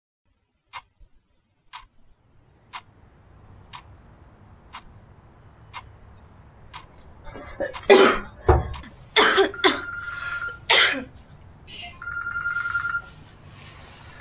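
A clock ticking about once a second. About halfway through, a woman coughs several times in a row, the loudest sounds. Then a mobile phone rings in short bursts of a steady electronic tone.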